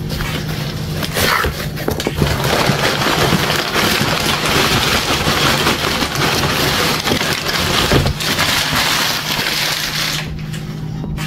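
Packaging being torn open and crumpled: dense crinkling and crackling of plastic and cardboard, easing off near the end.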